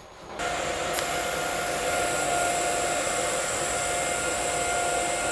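TIG welding arc struck on steel pipe by lift-arc start about half a second in, then burning steadily with a hiss and a steady hum, set at about 133 amps for the hot pass.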